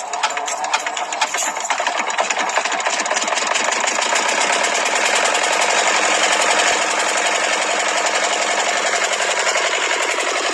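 Miniature model stationary engine driving a small water pump, running with a fast, even mechanical rattle that speeds up and gets louder over the first few seconds, then holds steady.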